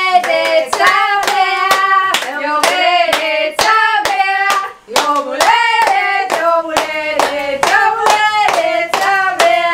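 People singing a birthday song and clapping along in time, about two claps a second.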